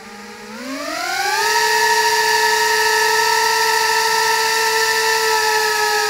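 Electric motors and propellers of a Huiying Toys Skull mini quadcopter (GW008 / HY-853) spinning up, a whine that rises in pitch over the first second and a half and then holds steady. Near the end the pitch starts to sink slightly as the motors ease off.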